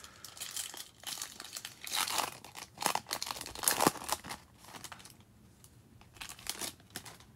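Silver foil wrapper of a Topps Opening Day baseball card pack being torn open and crinkled by hand, in irregular crackles that are densest in the first four seconds and thin out after.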